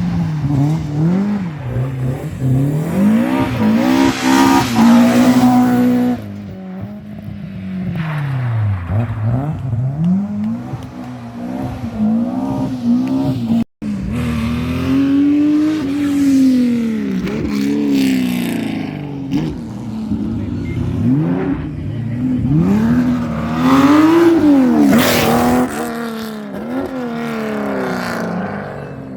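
Rally car engines at high revs, the pitch rising and falling again and again as the cars accelerate, lift off and change gear through the stage, loudest as each car passes close. A brief gap about halfway through, then another car.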